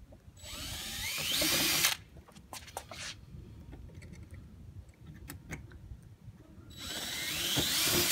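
Cordless drill boring holes into the Jeep's body panel around the fuel filler opening, in two runs of about a second and a half each, its motor whine rising in pitch as it speeds up.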